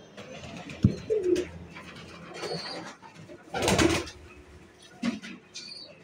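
Domestic pigeons cooing, with a sharp thump about a second in and a loud, short noisy burst a little past halfway.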